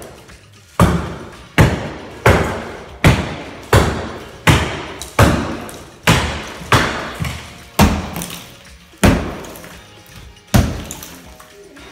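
Hammers smashing into a drywall wall during demolition: a dozen or more sharp blows, one every half second to a second, each with crumbling debris after it.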